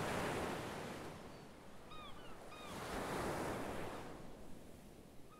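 Sea surf washing against a rocky shore, swelling twice as waves come in and draw back. A few short bird calls come about two seconds in.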